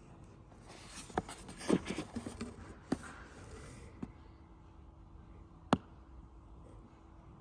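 Faint handling sounds: light clicks, taps and rustles, bunched together in the first three seconds, with one sharper click a little before six seconds in, over a faint steady hum.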